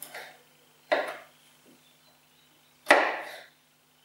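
Kitchen knife chopping through food onto a wooden cutting board: two sharp knocks, about two seconds apart, each dying away quickly.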